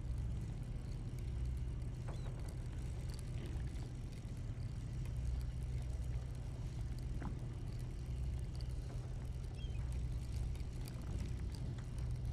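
Steady low drone of a fishing party boat's engine, with a few faint clicks and knocks.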